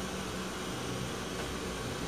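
Steady background hum and hiss of room noise.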